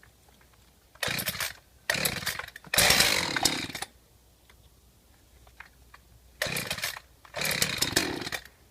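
Two-stroke chainsaw being pull-started: three quick pulls of the starter cord, then two more a few seconds later, each burst lasting under a second as the engine sputters without keeping running. Its spark plug is worn and has just been cleaned with gasoline and a wire brush.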